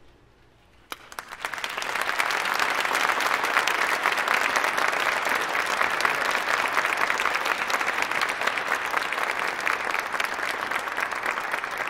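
Audience applauding: a single clap about a second in, then the applause swells quickly and holds steady.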